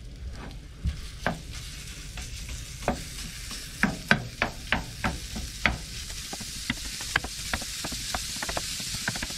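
Wooden spoon knocking and scraping in a frying pan as raw ground lamb is broken up, the sharpest knocks about halfway through. The meat starts sizzling, the hiss growing louder near the end as the pan heats.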